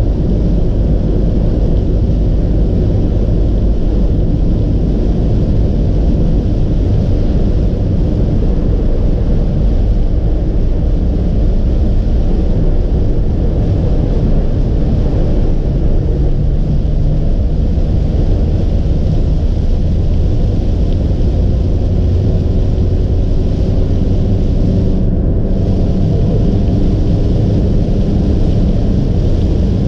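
Steady road noise inside a car cruising on a rain-soaked expressway: a low rumble of tyres and engine with a hiss of water spray, which drops out briefly near the end.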